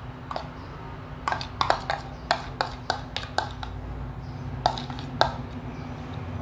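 Metal spoon tapping and scraping a small plastic bowl as diced tomatoes are knocked out into a larger ceramic bowl: a run of irregular light clicks and knocks, with two sharper ones about five seconds in.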